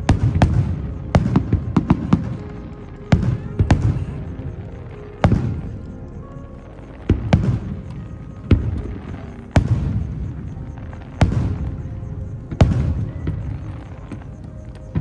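Aerial firework shells bursting one after another, each a sharp boom with a rolling echo behind it. A quick flurry of bursts comes in the first two seconds, then about one every second to second and a half.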